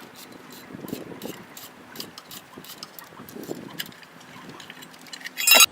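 Scattered light metallic clicks and taps of tools working a disc brake caliper as its piston is pushed back. A louder rattling clatter comes just before the end.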